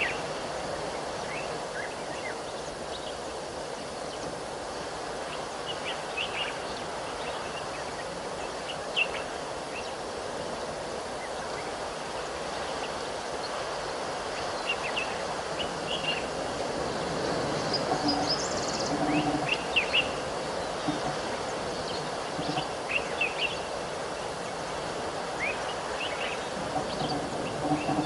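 Outdoor bush ambience: a steady background hiss with short bird chirps scattered every few seconds, one higher chirp about two-thirds of the way through.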